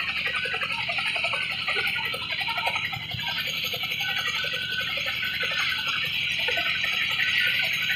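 Boeing CH-47 Chinook helicopter running on the ground, its twin turboshaft engines giving a steady high whine over a low hum.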